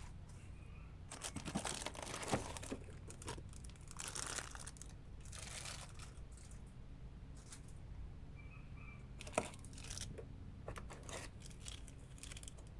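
Packaging being handled during an unboxing, crinkling and tearing in irregular bursts, with a few sharp clicks; the loudest click comes a little over nine seconds in.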